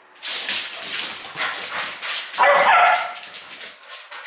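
Two dogs playing on a hardwood floor: a steady run of quick clicks and scuffles from their paws, with one loud bark about two and a half seconds in.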